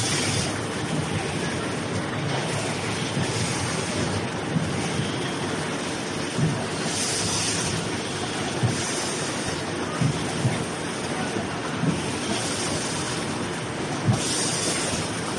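Automatic facial tissue box packing machine running: a steady mechanical clatter and whir with a low knock every second or two as its mechanisms cycle.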